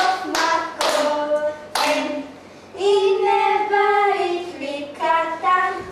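Girls singing together with hand claps: about three sharp claps in the first two seconds, then one long held sung note, then shorter sung syllables near the end.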